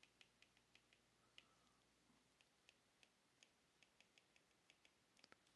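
Near silence with faint, irregular light ticks: a stylus tapping on a tablet's glass screen while handwriting.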